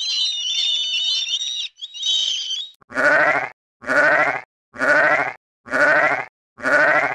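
Sheep bleating five times, about once a second, each bleat a wavering call. Before them, for the first couple of seconds, a thin, high-pitched wavering calling.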